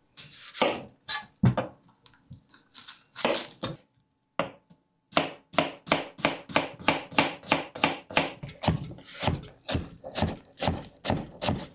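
Chef's knife cutting an onion on a cutting board: a few separate cuts, then after a short pause a steady run of about four chopping strokes a second as the onion is roughly diced.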